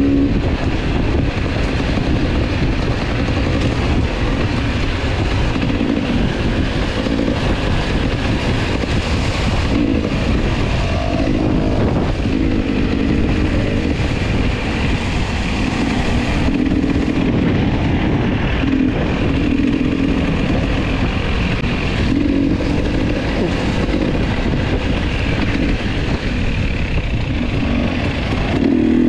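Enduro dirt bike engine running along a forest trail, rising and easing as the throttle is worked every second or two, over a steady rush of wind and trail noise.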